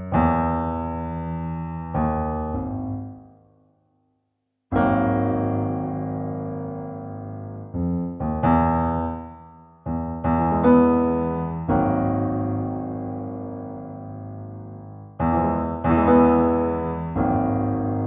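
Logic Pro X's stock grand piano software instrument playing a slow, low improvised bass line. Notes and chords are struck one after another and left to ring and fade, with a brief silence about four seconds in.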